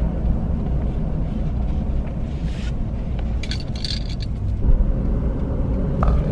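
Road and engine rumble inside a moving car's cabin, steady throughout, with a few light rattles in the middle.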